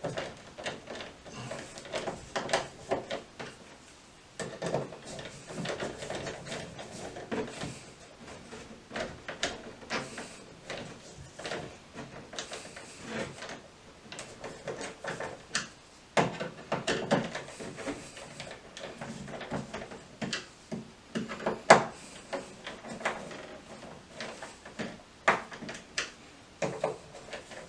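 Irregular clicks, knocks and scraping as a smart light switch and its wires are pushed and worked into a wall electrical box, with one sharper click about two-thirds of the way through.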